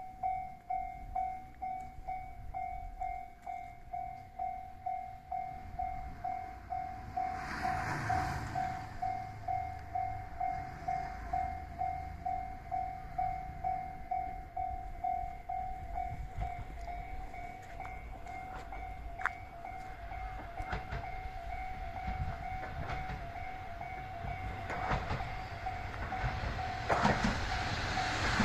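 Level-crossing warning bell dinging steadily at about two dings a second, with a brief rushing sound about eight seconds in. Near the end the approaching train grows louder, its rumble and rail noise rising over the bell.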